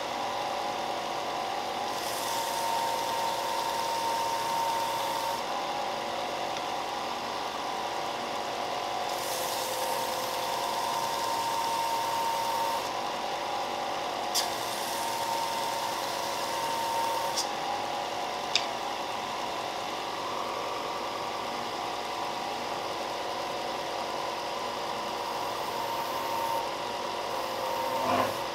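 Benchtop belt sander running steadily with a constant motor hum. In several stretches a brighter hiss is added as wooden coasters are pressed against the moving belt. A few sharp clicks come in the middle.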